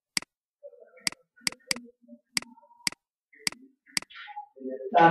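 A pen stylus clicking sharply and irregularly against a writing surface as words are handwritten, about ten clicks over five seconds. A voice begins near the end.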